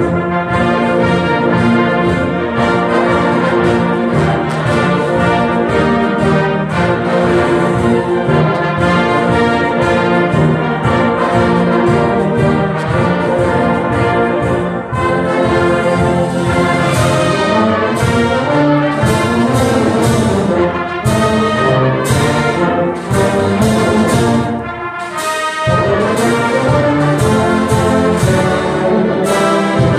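A high school symphonic band, a full concert band of woodwinds, brass and percussion, playing a piece with many sustained layered parts. From about halfway through, sharp strikes come in over the band, and the volume dips briefly about five seconds before the end.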